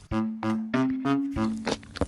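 Background music: an upbeat instrumental tune with a steady beat and bouncy synth notes.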